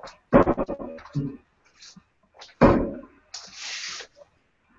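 Two darts thudding into a Winmau Blade 4 sisal bristle dartboard, a little over two seconds apart.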